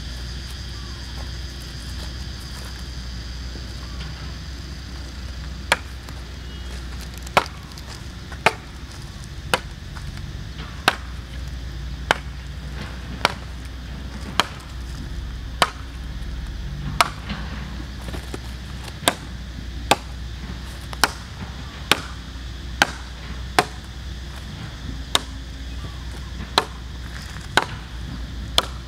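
Machete chopping into a long wooden pole: about twenty sharp strokes, roughly one a second, starting about six seconds in.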